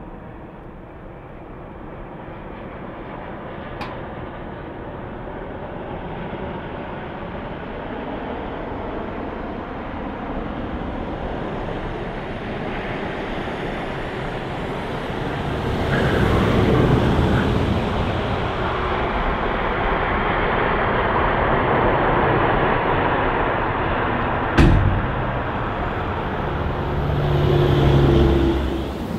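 Jet airliner engines growing steadily louder as the aircraft approaches, building over about fifteen seconds to a loud, steady rush with deep rumble. There is a sharp knock about 25 seconds in.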